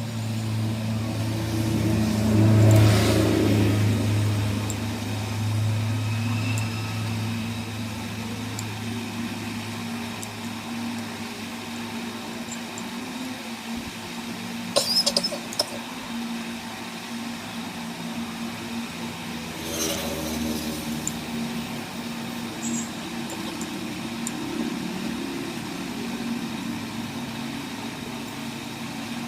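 A steady mechanical hum, louder for the first few seconds, with a few short clicks about halfway through.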